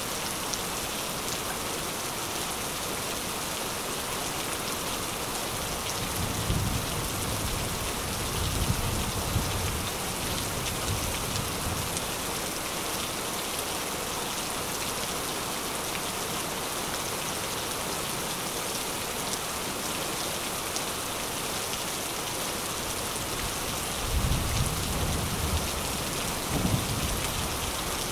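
Steady rain, with low thunder rumbling twice: for several seconds from about six seconds in, and again near the end.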